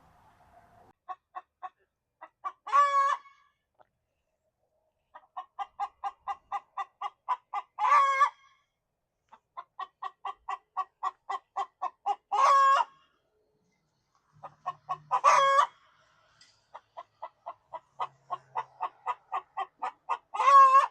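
A hen's cackle, the so-called egg song: runs of quick short clucks, about four a second and growing louder, each ending in one long loud squawk, five times over.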